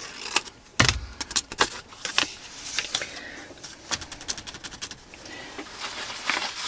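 Paper and craft materials being handled on a work table: a knock about a second in, then a quick run of light clicks and taps, with softer rustling afterwards.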